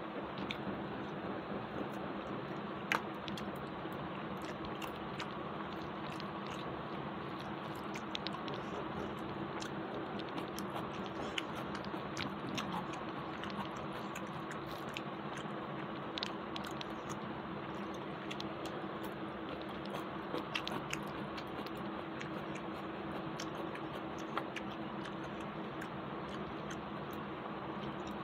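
A person eating rice and curry by hand: chewing and small mouth smacks, with scattered soft clicks, over a steady background hum.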